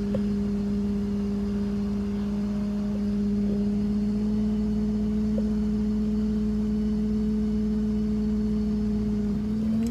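Tow truck's engine heard from inside the cab while driving, a steady drone that rises slightly in pitch near the end.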